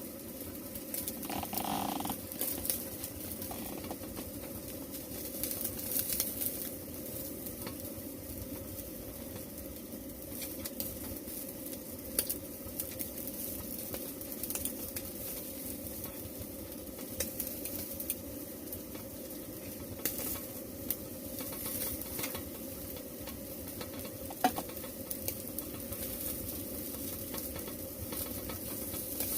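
Food sizzling as it fries in a hot pan, with a few sharp clicks of a utensil stirring or turning it.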